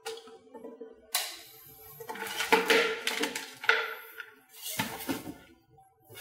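Handling noises: a power cable and adapter shifted about on a wooden table and a foam-board speaker box turned round, giving several short knocks and rustles, with faint music underneath.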